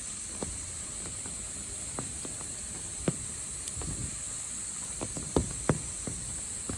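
Insects buzzing in a steady, high, continuous drone, with irregular sharp taps and a few soft thuds, the loudest a pair of taps about five and a half seconds in.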